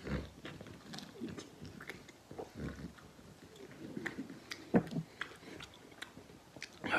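A person chewing a mouthful of lamb noodles up close, with wet lip smacks and small mouth clicks scattered throughout and one sharper smack about five seconds in.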